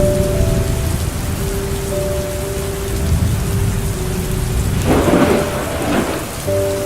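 Steady rain with a low rolling thunder rumble, and a louder rush about five seconds in. Soft, slow background music of held notes plays along.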